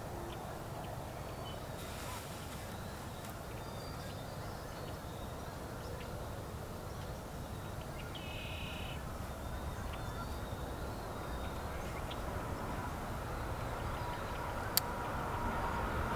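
Outdoor ambience: a steady low rumble that grows slightly louder, a short bird call about eight seconds in, and one sharp crack near the end.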